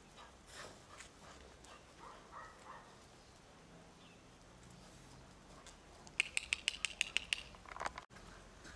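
Faint pattering of Shar-Pei puppies' paws and claws on patio tiles. About six seconds in, a quick run of roughly ten sharp high ticks over about a second.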